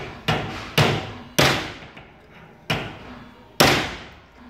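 Hammer striking a clamped Faraday Motion 6364S electric skateboard motor, a strength test to see whether it bends. About six sharp metallic blows at uneven intervals, each ringing briefly, the hardest near the end.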